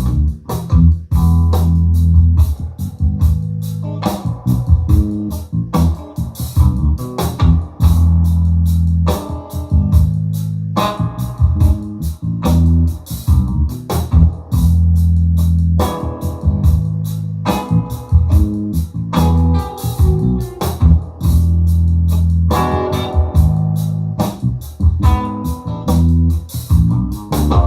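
Guitar-led music with a heavy bass line and drums played back through a powered 8-inch PA monitor speaker, as a demo of how the speaker sounds.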